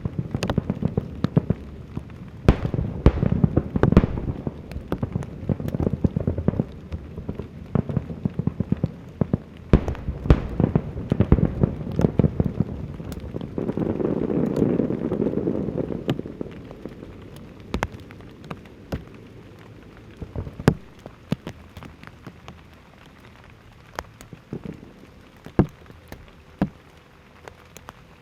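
Large aerial fireworks display: a dense run of sharp crackles and bangs from bursting shells, with a swell of rushing noise about halfway, then thinning to scattered pops.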